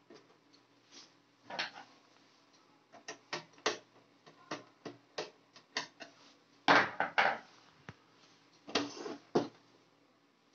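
Screwdriver working on the sheet-metal cover of a Dahua DVR cabinet while the case is handled: a run of short clicks and light metallic knocks, with two louder clattering scrapes in the second half.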